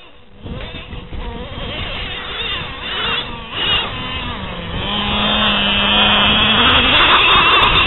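Traxxas Revo 2.5 nitro RC truck's small two-stroke glow engine revving up and down as the truck drives. It gets louder from about five seconds in.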